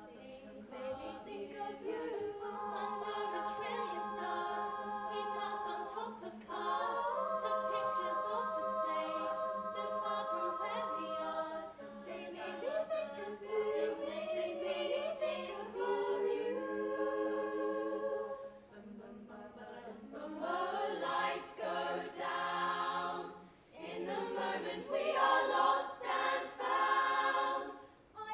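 All-female youth a cappella group singing in close harmony, held chords over a steady low sustained note. The singing grows louder and more rhythmic in the last third.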